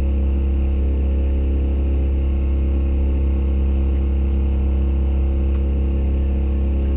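A boat engine running steadily at constant speed, a loud low drone with an even rhythmic beat, heard inside the sailboat's cabin.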